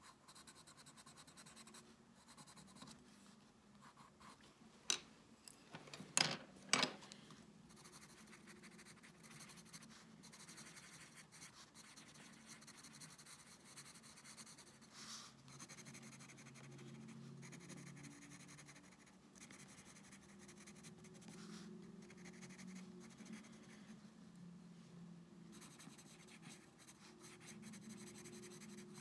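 Soft scratching of a pencil crayon and then a black drawing pen moving over sketchbook paper. There are three sharp clicks between about five and seven seconds in.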